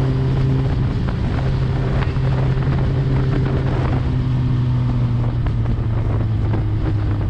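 Suzuki GSX-R1000 inline-four running through an Akrapovic full exhaust at a steady cruising engine speed, with wind rushing over the microphone. The engine note drops slightly near the end.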